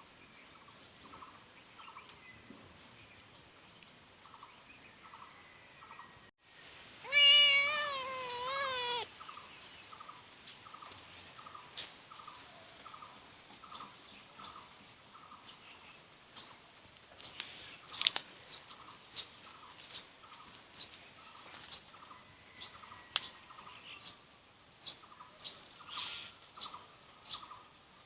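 A cat gives one long, wavering meow about seven seconds in. Under it, a faint series of short calls repeats about once a second, and from about twelve seconds on there are many short, sharp chirps.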